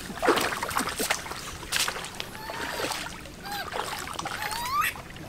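Water splashing and sloshing, with a few separate splashes in the first two seconds. Later come some faint short rising calls.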